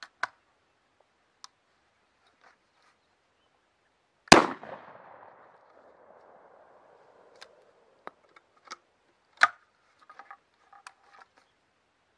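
A FedArm single-shot 20-gauge break-action shotgun fires once about four seconds in, its report trailing off over about two seconds. Afterwards come a string of sharp metallic clicks and clacks: the action being broken open, the spent shell pulled out by hand since the gun has no ejector, a fresh shell loaded and the action snapped shut.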